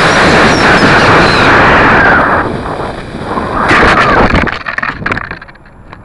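Model rocket in flight, heard from a keychain camera riding on its body: a loud, even rushing noise of the motor's thrust and air rushing past the camera. It eases about two seconds in, surges again for about a second near four seconds, then fades to light rattles and clicks.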